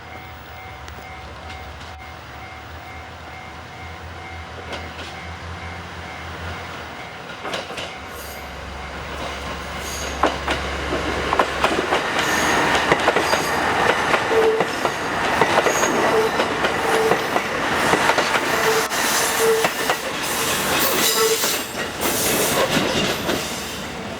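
KiHa 189 diesel railcar train running past, a low engine hum giving way about eight seconds in to growing rail noise. The wheels clatter rhythmically over the rail joints, loudest in the second half.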